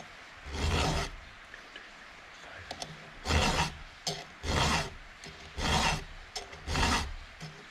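Chainsaw file rasping across the chrome-plated cutter of a saw chain as it is sharpened by hand: one stroke about half a second in, then after a pause four more even strokes about a second apart.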